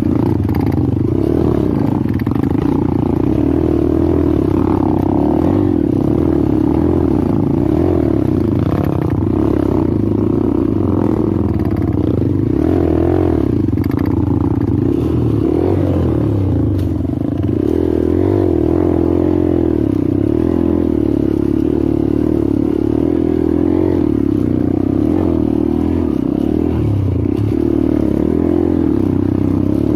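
Honda CRF trail motorcycle's single-cylinder four-stroke engine running as it is ridden along a dirt trail, its pitch rising and falling with the throttle.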